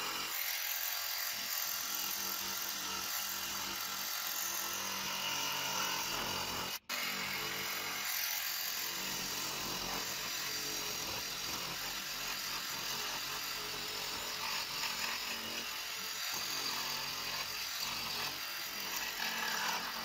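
Jigsaw fitted with a Collins Coping Foot running steadily as it cuts a cope into crown molding, stopping for an instant about seven seconds in and then cutting on.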